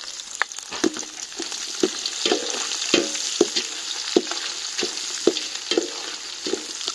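Chopped shallots sizzling in hot ghee in a metal pot while a ladle stirs them, knocking against the pot about twice a second with a short metallic ring each time.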